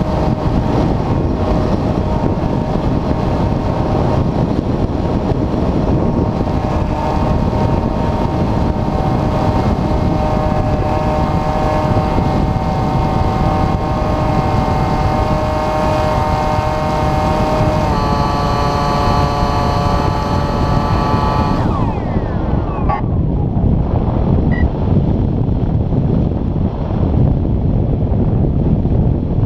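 Electric motor and propeller of an Airfield Extreme Surfer 2400mm RC glider whining steadily under heavy wind rush on the onboard microphone. The whine steps up in pitch about 18 seconds in, then falls in pitch and stops a few seconds later as the motor is cut, leaving only the wind rush of the glide.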